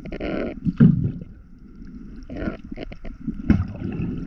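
Muffled underwater noise heard through a submerged camera, with water rushing in bursts, a loud low knock just under a second in and sharp clicks about three and a half seconds in, as a diver handles a speared hogfish on a pole spear.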